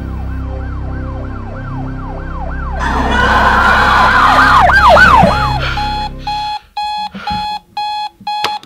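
A siren wailing in fast rising-and-falling sweeps over a low rumble, joined about three seconds in by a woman screaming. About six and a half seconds in it all cuts off, and a digital alarm clock beeps about twice a second.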